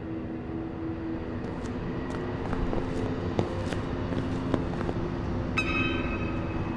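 City street traffic noise with a steady low hum, and footsteps on the pavement. A short high tone sounds about five and a half seconds in.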